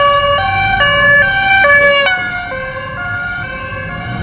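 Two-tone emergency-vehicle siren alternating between a high and a low note, switching about two and a half times a second; about two seconds in its notes drop in pitch and it grows quieter. A car engine runs low underneath, heard from inside the car.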